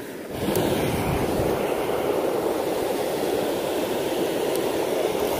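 Creek water pouring over a small concrete dam spillway: a steady rushing noise that swells up within the first half second and then holds level.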